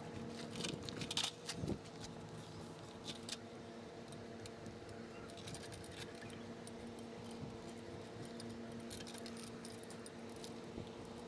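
Light metallic clicks and rattles from an aluminium step ladder being climbed and gripped, clustered in the first two seconds and again near the end, over a steady faint hum.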